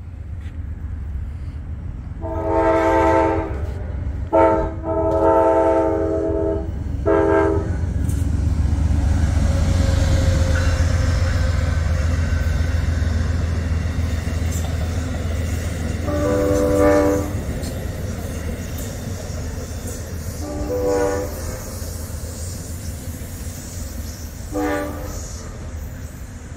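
Locomotive air horn blowing several notes at once, in an irregular run of blasts: a long one, a short toot, a longer one and a short one in the first eight seconds, then three shorter blasts spread over the second half. Underneath runs the steady low rumble of the train, swelling in the middle and easing toward the end.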